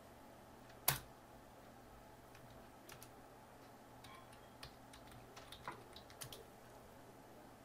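Faint typing on a computer keyboard: one sharp keystroke click about a second in, then a scattered run of lighter key clicks.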